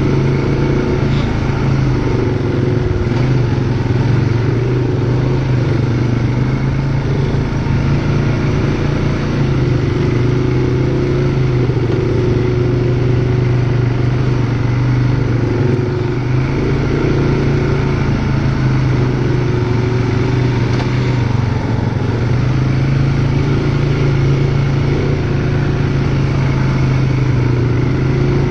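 ATV engine running steadily at a slow, even cruising speed, its pitch wavering only slightly.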